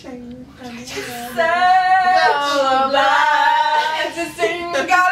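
A woman singing unaccompanied in a high voice, holding long notes that bend up and down, starting about a second and a half in after some quieter voice sounds.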